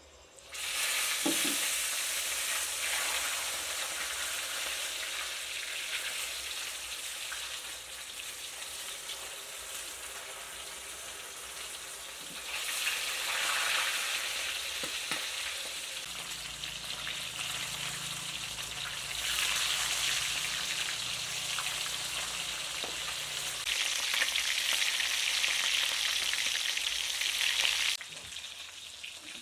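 Food frying in hot oil in a pan: a steady sizzle that starts suddenly, swells louder several times, and cuts off abruptly shortly before the end.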